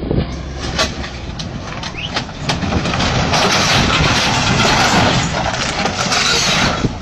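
Bulldozer's diesel engine working hard as it climbs onto a flatbed truck, with scattered knocks and clanks. The noise grows louder and fuller about three seconds in and drops off sharply near the end.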